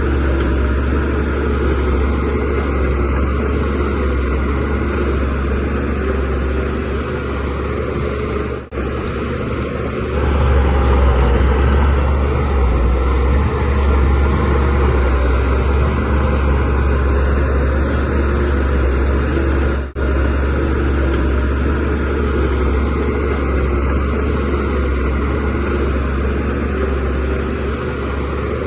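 SHANTUI DH17C3Pro bulldozer's diesel engine running steadily under working load, with a deep, constant hum. It grows a little louder about ten seconds in, and the sound drops out for an instant twice.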